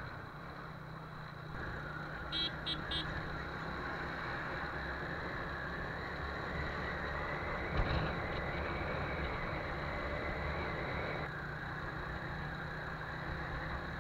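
TVS Apache RTR 180 motorcycle's single-cylinder engine running at road speed with wind and road noise. A horn beeps three times in quick succession about two and a half seconds in, and a single thump sounds about eight seconds in.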